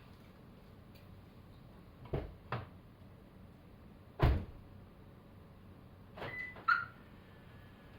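Car door on a Toyota Land Cruiser Prado: two short clicks about two seconds in, then the door shut with a solid thump. Near the end comes another clunk with a brief electronic chirp.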